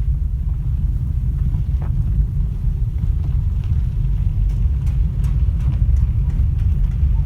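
Lada Vesta driving over bumps, with steady low road rumble and a scattering of sharp knocks from the suspension, most of them a little past the middle. The knocks are the suspension fault the car is being driven to show.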